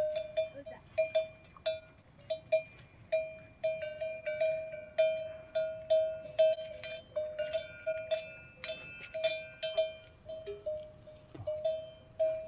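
Metal livestock bells clanking irregularly, several ringing strikes a second on one steady pitch.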